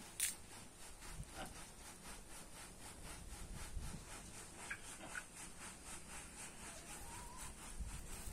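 Faint outdoor ambience: a steady high-pitched pulsing repeats about three to four times a second, with a sharp click just after the start and a few faint short chirps.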